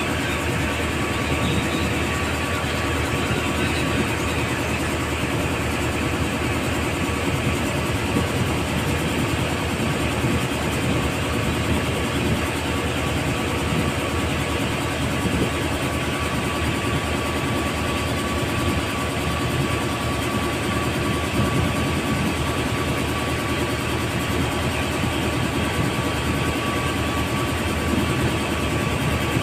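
Motorboat engine running steadily, heard from on board, with a constant thin whine over a dense low drone and the rush of wind and water.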